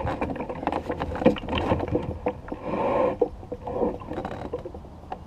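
Knocking and clattering on a small fishing boat, a quick run of knocks densest in the first four seconds, with a brief rush of noise just under three seconds in.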